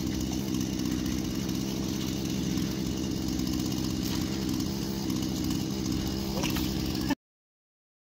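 An engine idling steadily at an even speed, cutting off abruptly about seven seconds in.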